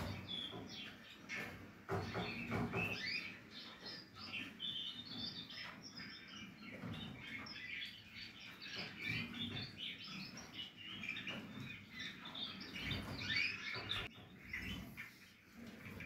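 Portuguese Harlequin canaries chirping at the nest: a busy stream of short, high chirps, with a few dull low thumps.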